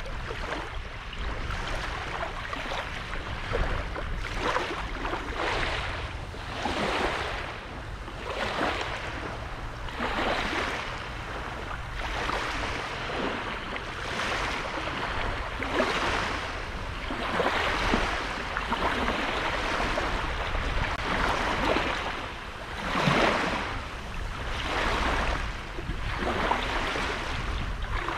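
Sea waves breaking and washing up on a sandy beach, a new wash swelling and fading every one to two seconds, over a low rumble of wind on the microphone.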